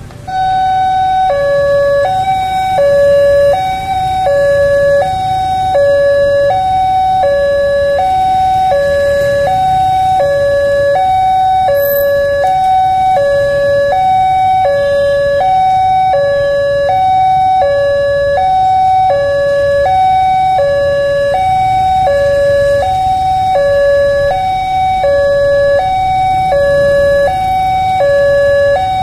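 Railway level-crossing warning siren sounding a two-tone hi-lo alternation, switching between the two notes about every three-quarters of a second. It comes on abruptly just after the start and keeps going, warning that a train is about to pass over the crossing.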